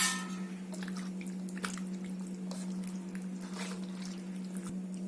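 Boneless fish pieces being mixed in a wet egg and corn-flour marinade: soft squelching and scattered small clicks, after a sharp knock right at the start. A steady low hum runs underneath.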